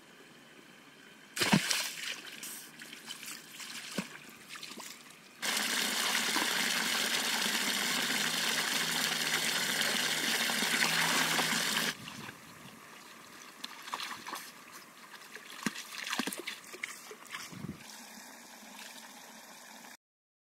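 Water in a muddy pool: a sharp splash about a second and a half in, then a jet of water pouring from above and splashing steadily into the pool for about six seconds before cutting off suddenly. Scattered smaller splashes of wading follow.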